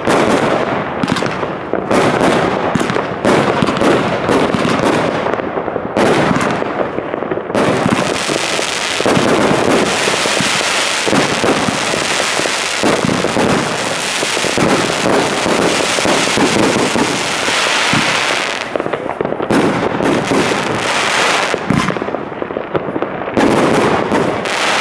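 Consumer firework cakes firing: a rapid run of launch thumps and star bursts, thickening about eight seconds in into a continuous dense hiss of many effects at once for about ten seconds, then breaking back into separate bangs near the end.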